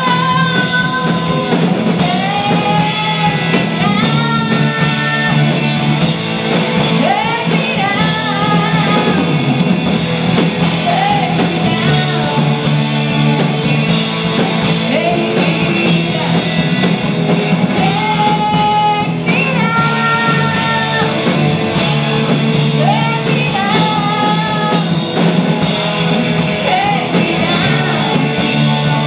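Live rock band playing: a woman sings lead over electric guitars, bass guitar and a drum kit.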